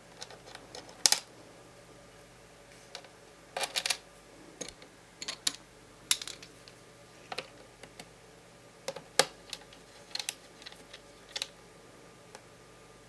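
Laptop keyboard keys and buttons pressed in scattered, irregular clicks, some singly and some in quick little clusters.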